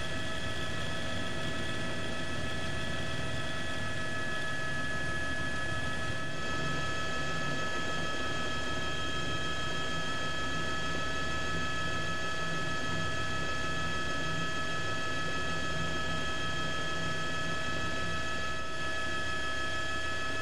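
Steady helicopter engine and rotor noise: a constant high whine over a low rumble, unchanging throughout.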